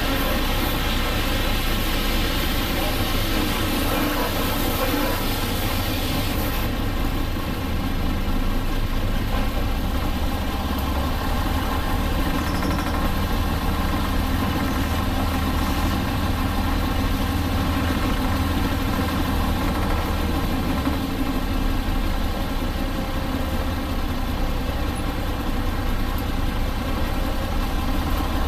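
Diesel engine of a Hino Blue Ribbon RC monocoque bus running steadily, with a high hiss that stops about six and a half seconds in.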